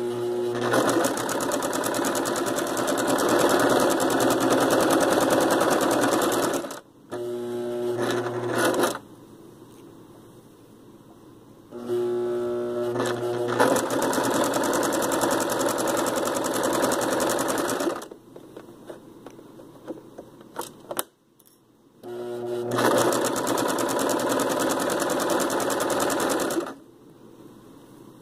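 Electric sewing machine stitching in four runs of a few seconds each, separated by short pauses. Each run starts with a brief steady hum as the motor gets going, and a few small clicks fall in the longest pause.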